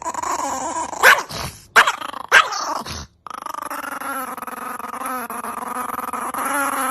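A dog gives three sharp barks in the first few seconds. After an abrupt cut, a dog growls steadily, the growl wavering and building slightly.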